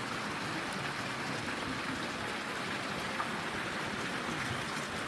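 Water splashing steadily from a garden fountain, an even rushing hiss.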